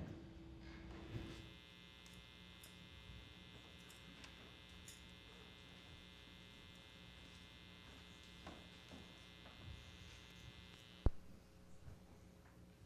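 Faint steady electrical buzz, a hum with many even overtones, that cuts off at a sharp click about eleven seconds in. The click is the loudest sound, and a lower hum carries on after it.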